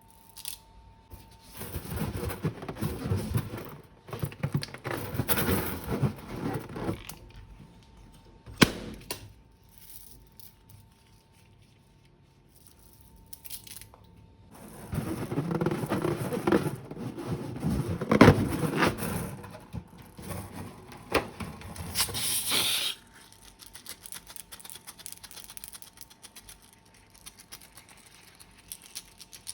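Hand-handling noises of slime-making: two long stretches of crackly, rustling squishing as slime and its add-ins are squeezed and mixed, with a sharp click about nine seconds in and fainter crackling between and afterwards.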